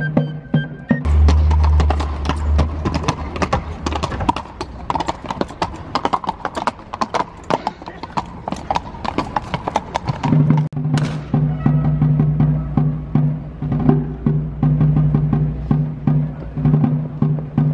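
Horses' hooves clip-clopping on stone paving, a quick run of many strikes from the mounted guard. Fife-and-drum march music plays in the first second and returns from about ten seconds in, with the drum beating under it.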